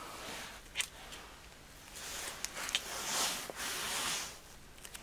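Clear plastic bags of model-kit parts crinkling and rustling as they are handled, with a few sharp clicks.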